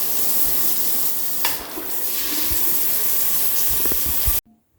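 Water spraying hard from a handheld shower head's power-wash jet, a steady hiss that cuts off suddenly near the end.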